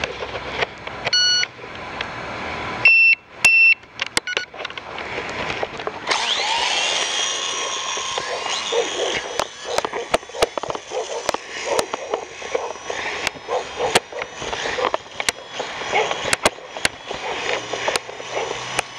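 A few short electronic beeps, then about six seconds in the small electric motor and rotor of a Syma Armor F1 RC helicopter spin up, rising in pitch into a steady high whine, with scattered sharp clicks.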